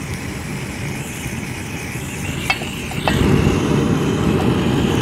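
A campfire being lit in a fire bowl, its flame flaring with a steady rushing noise that starts and stops abruptly and grows louder about three seconds in. Two sharp clicks come about two and a half and three seconds in.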